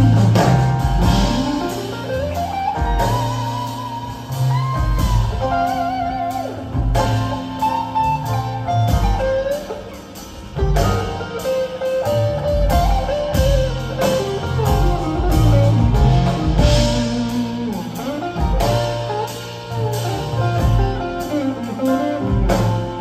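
Live jazz quartet playing: an electric guitar carries a moving melodic line over walking double bass, piano and drums.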